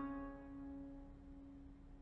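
Plucked-string background music in a lull between phrases: the last notes ring out and fade, leaving one low note sounding.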